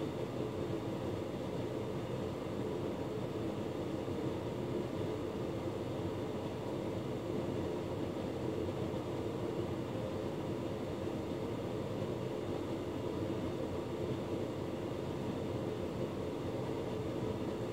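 Hotpoint Ultima S-Line tumble dryer running with its drum turning: a steady, even whir from the motor and fan that does not change.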